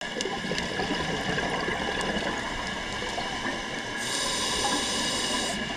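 Scuba diver breathing, heard underwater: bubbly gurgle of exhaled air, then a hiss from the regulator on an inhale lasting about a second and a half, starting about four seconds in.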